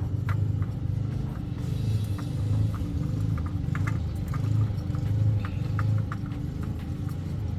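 Scattered light clicks and scrapes of a metal oil filter being threaded on by hand, over a steady low rumble that swells and eases.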